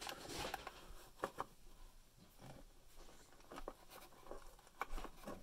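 Side cutters snipping the clear plastic ties that hold a toy accessory to a cardboard box insert: a few faint clicks spread over a few seconds, with light rustling of the cardboard.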